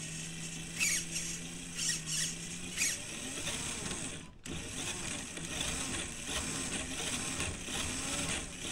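FMS Toyota Land Cruiser FJ40 RC crawler's electric motor and drivetrain spinning the wheels off the ground: a steady whine for the first few seconds, then speed rising and falling with the throttle, with a brief pause about four seconds in and a few short high squeaks early on. The drivetrain runs with no clicking, its worn dog-bone shafts replaced by new drive shafts.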